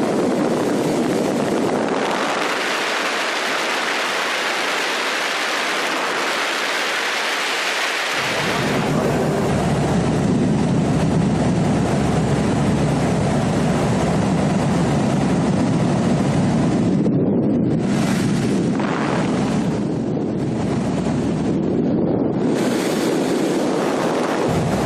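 Steady rushing, buffeting noise of wind on the microphone. It grows deeper and heavier about a third of the way in, and the hiss thins out briefly a few times near the end.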